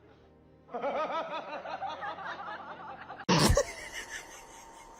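Snickering laughter over music, a quick run of rising and falling pitched bursts, cut off about three seconds in by a loud sudden noise.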